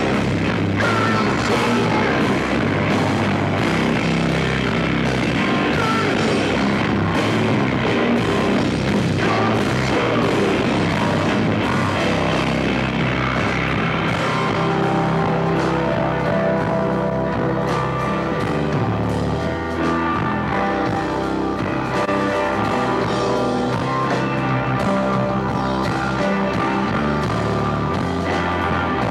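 Rock band playing live and loud: distorted electric guitars over a drum kit. From about halfway through, the guitars hold long ringing notes.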